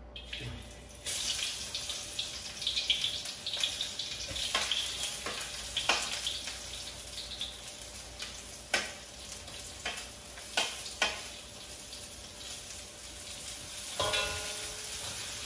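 Sliced onions frying in hot oil in a wok, a steady sizzle that starts about a second in as they hit the oil. A few sharp clicks and pops cut through it, and the sizzle grows busier near the end as the onions are stirred.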